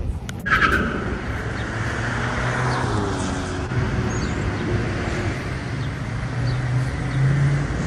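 Street traffic: motor vehicles running and driving past, a low engine hum under steady road noise, a little louder near the end. A sharp click about half a second in.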